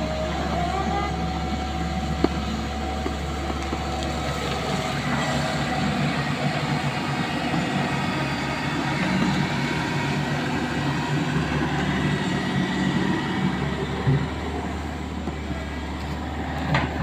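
Hydraulic excavator's diesel engine running steadily, with a few short knocks.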